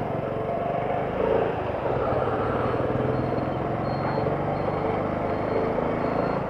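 A motorcycle engine running steadily amid road-traffic noise.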